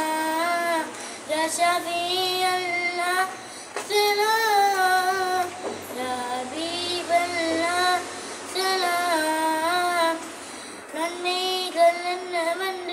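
A boy singing an Islamic devotional song solo, without instruments, in long wavering phrases with short breaths between.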